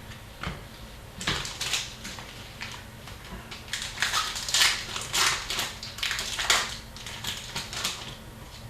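Irregular rustling and crinkling as trading card packaging and cards are handled, in uneven bursts with short pauses between them.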